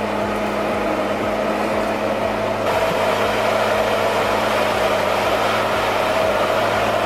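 Logset 6F forwarder's diesel engine running steadily under load, with a low pulse about three times a second.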